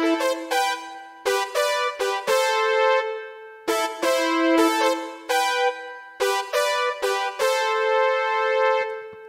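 Yamaha Genos keyboard playing a synthesized 1980s-style brass voice. A quick melodic figure is harmonized in thirds and sixths, in short phrases of sharply struck notes, some ending on a held chord.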